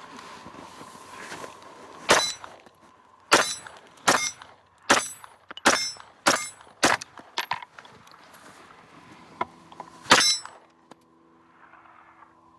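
Zev-modified Glock pistol firing about nine shots in an uneven string, the last one after a pause of a couple of seconds.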